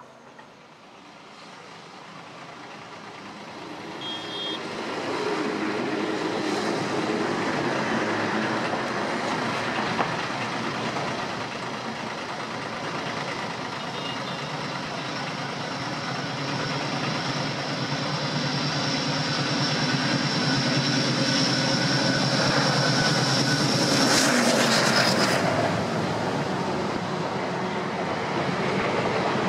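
A pair of ALCo diesel locomotives working a train, engines chugging as they approach and pass, growing louder over the first several seconds. A steady high whine runs through the middle, and the sound is loudest near the end.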